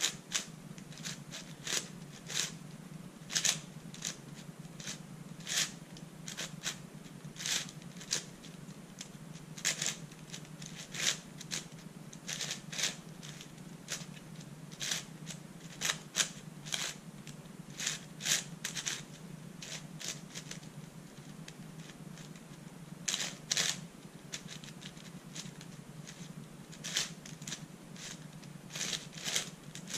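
Layers of a 4x6x8 ultimate shapeshifter twisty puzzle, a modded Meilong 8x8 with smoothed 3D-printed plastic extensions, being turned quickly in a scramble: an irregular run of plastic clicks and clacks, one or two a second, sometimes in quick flurries.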